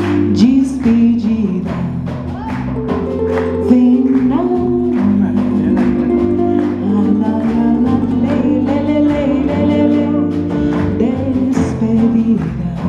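Live band music: a woman singing a melody over acoustic guitar, electric bass and hand percussion keeping a steady beat.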